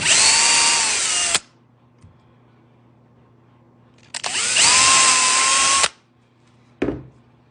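A power drill running in two short bursts, each a second or two long, starting and stopping abruptly with a motor whine. A short knock follows near the end.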